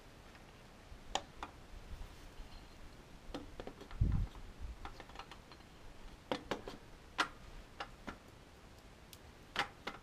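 Scattered light metallic clicks and taps of a piston and connecting rod being handled at a tractor engine block during piston ring replacement, with a duller thump about four seconds in.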